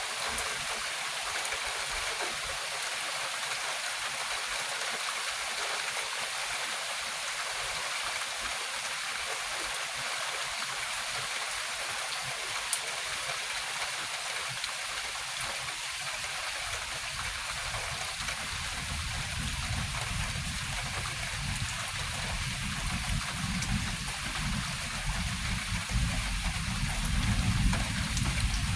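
Steady hiss of rain, with a low rumble that comes in and grows over the last third.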